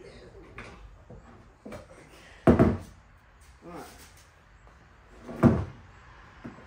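Work noises: a few light knocks and two loud thuds, one about two and a half seconds in and one about five and a half seconds in, like a door or panel being shut or something heavy being set down.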